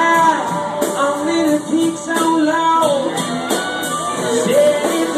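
Band music: singing with guitar over a steady beat.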